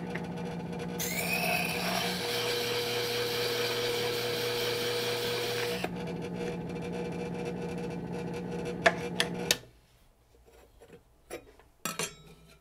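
Powered hone with a 1200-grit diamond disk running with a steady hum. From about a second in until about six seconds, a high-speed steel graver held in a geometry block grinds on the disk with a steady scraping hiss. The hum stops near the end, followed by a few light clicks.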